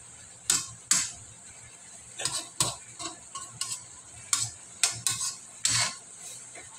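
Chicken adobo in a soy-and-vinegar sauce simmering in a wok: a steady faint sizzle broken by about ten sharp, irregular pops and crackles as the sauce heats toward a boil.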